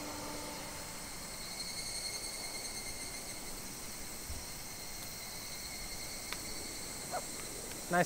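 Steady chorus of summer insects buzzing at several high pitches, with a fainter pulsing trill joining in about a second and a half in.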